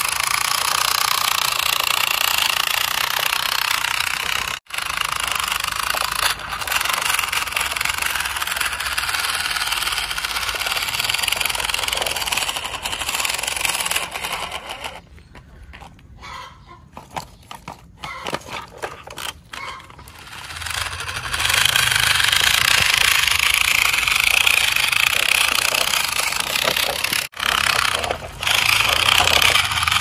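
Small electric motor and plastic gearbox of a toy RC truck whirring and buzzing. It cuts out briefly about four and a half seconds in, goes quieter and choppy in the middle, and breaks off once more near the end.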